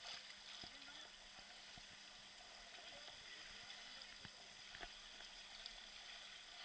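Near silence: faint moving water with a few soft knocks.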